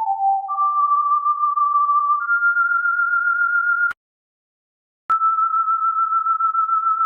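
Pure electronic sine tone held at steady pitches, stepping down once and then up twice. It cuts off with a click for about a second, then comes back with a click at a slightly lower pitch and holds.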